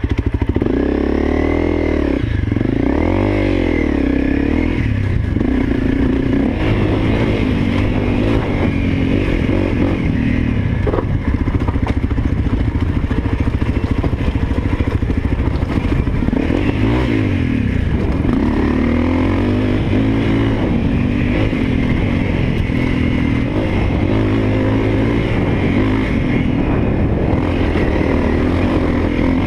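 Honda CRF250L's single-cylinder four-stroke engine running under way, its pitch rising and falling again and again as the throttle opens and closes.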